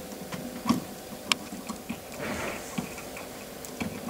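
A few sharp clicks and light knocks of a stepper motor and its jaw coupler being slid onto a ball screw, the metal standoffs meeting the actuator's end plate, with a brief scrape just past halfway.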